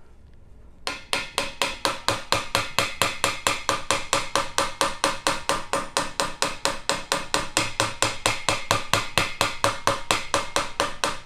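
Small mallet lightly tapping, about four to five taps a second, on the rod that drives a tight-fitting dent slug through a trombone slide tube, each tap with a faint ring. The tapping starts about a second in and carries on without a break.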